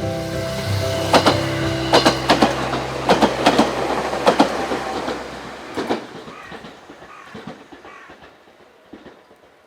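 A Sangi Line train passing with a steady mechanical hum, and wheels clacking over rail joints in a run of sharp clicks. The hum cuts off about six seconds in and the sound fades away as the train moves off.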